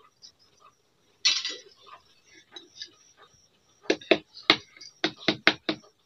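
Steel ladle clinking and knocking against steel cookware: a short scrape about a second in, then a quick run of about eight sharp metallic knocks near the end.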